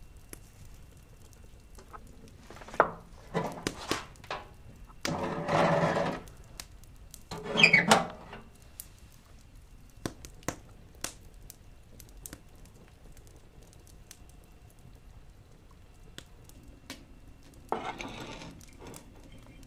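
Knocks, scrapes and clatters of cookware and wood, with a short squeaky creak about eight seconds in and scattered faint clicks between them.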